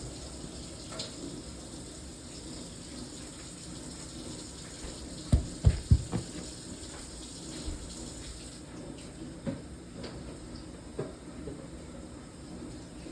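Kitchen tap running into a sink as vegetables are rinsed, with a quick cluster of four deep thumps about halfway through and a few lighter knocks.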